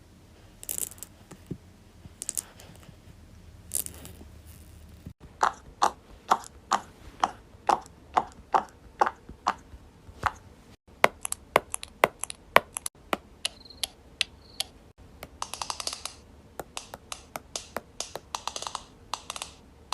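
Silicone pop-it fidget toy bubbles being pressed and popping one after another: a few scattered pops at first, then a steady run of about two pops a second, then quicker, less even pops.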